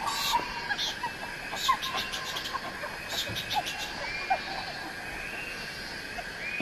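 Frogs and insects calling together: short chirps scattered throughout over a steady high trill, with bursts of rapid clicking pulses in the first half.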